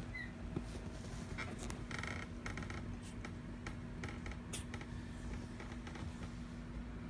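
Kittens scratching and scrabbling about: scattered light scratches and clicks, busiest about two seconds in, over a steady low hum.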